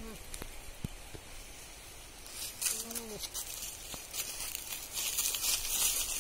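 Goats biting and tearing at a ripe jackfruit on the tree, a run of crisp crunching and ripping sounds from the fruit's spiky rind and flesh that grows louder in the second half. A short low call, rising then falling, sounds at the start and again about three seconds in.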